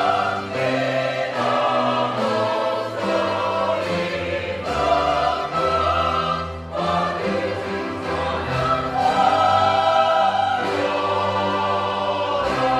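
Church choir singing an anthem in held chords that change every second or so.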